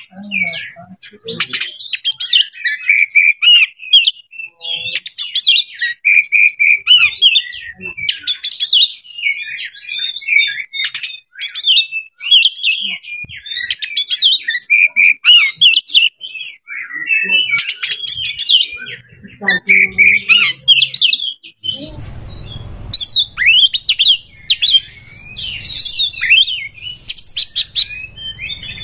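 Oriental magpie-robin singing a fast, varied song of whistles, trills and chattering phrases, rich in mimicked notes. From about 22 seconds in, a low steady background rumble sits under the song.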